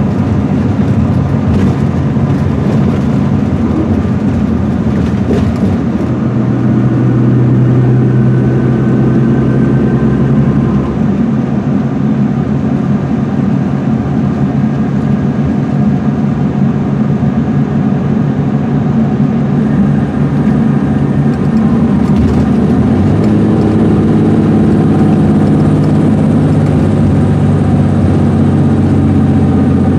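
MCI D4500CL coach with a Cummins ISM diesel engine running at highway speed, heard from inside the cabin over steady road and tyre noise. The engine's low hum shifts in pitch a few times, about 7, 11 and 23 seconds in.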